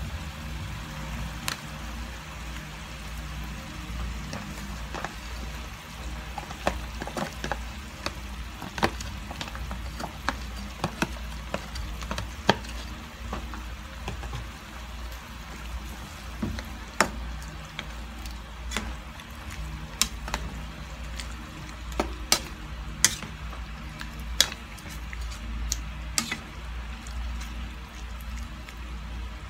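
Chicken and mushrooms frying in a pan, with scattered sharp pops and clicks over a steady low hum; a spatula stirs the pan near the end.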